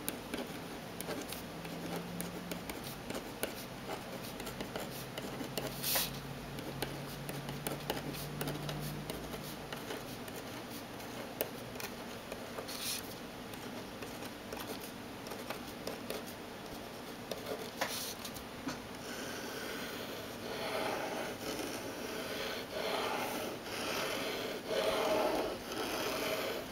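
Pilot Frixion 0.7 mm erasable gel pen writing on paper: faint scratching and small taps while letters are written, then, about two-thirds of the way in, louder rhythmic back-and-forth strokes as long looping lines are drawn across the page.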